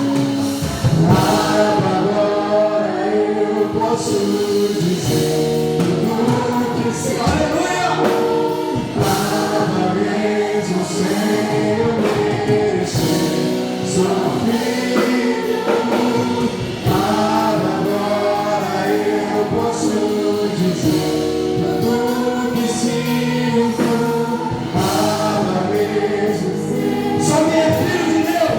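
Live gospel worship music: a praise team singing in chorus over band accompaniment with a steady beat.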